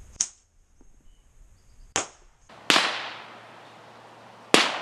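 Bottle rockets going off: four sharp bangs spread over a few seconds, the last two with long fading tails.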